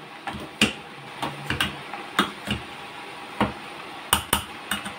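Chopped leek frying in hot oil in a nonstick pan: a steady sizzle with about ten sharp pops and crackles of spitting oil at uneven intervals.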